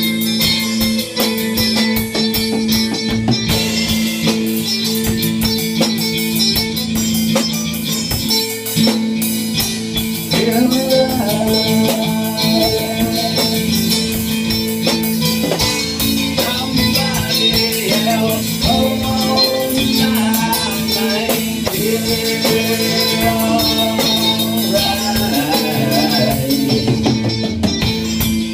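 A band playing live, with guitar and drum kit under a held low note. A wavering melody line comes in about ten seconds in and runs through most of the rest.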